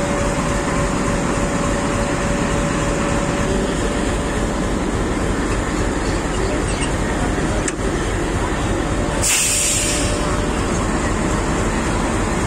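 Steady running noise of a standing train beside the coupling, with a click past the middle and a short hiss of under a second about nine seconds in.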